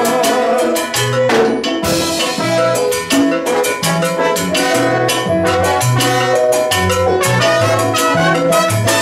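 Live Latin dance band playing, with a brass section of trombones and trumpets over a steady bass line and percussion.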